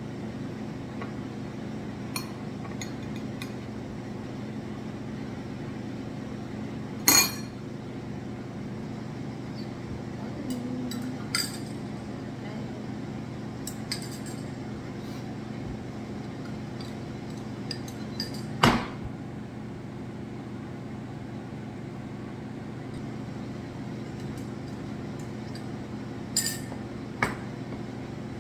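Metal spoon clinking against a ceramic mug and plate, a few sharp separate clinks, over a steady low background hum.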